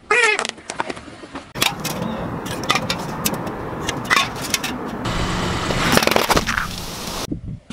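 A squeaky rubber toy gives a brief squeal as a car tyre presses on it. Then come crackling and sharp pops as the tyre rolls over things. Near the end, aluminium soda cans burst under the tyre with a loud hiss of spraying soda, and the sound cuts off suddenly.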